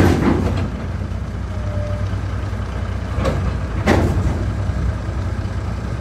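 Heavy diesel engine idling, a steady low rumble, with two short sharp noises about three and four seconds in.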